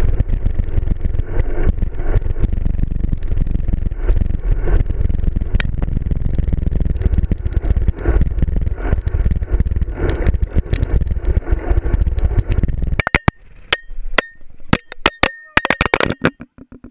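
Wind rush and road rumble picked up by a handlebar-mounted camera on a moving road bike. About 13 seconds in this stops suddenly and gives way to a string of sharp knocks and clicks, some with a brief ringing tone.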